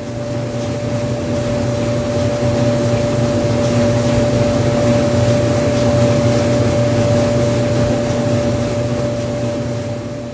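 Clothes dryer running, its drum tumbling with a steady motor and blower hum carrying two clear tones. There is no knocking or banging because the sneakers are strapped to a magnetic shoe holder on the drum.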